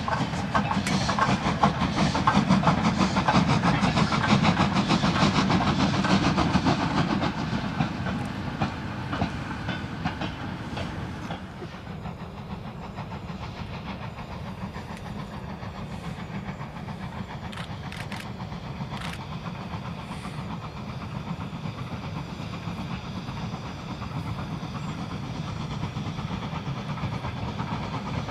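LNER K4 three-cylinder 2-6-0 steam locomotive working a goods train, with its exhaust beats and the wagons running on the rails. The sound is loud for the first ten seconds or so, then fainter and steadier.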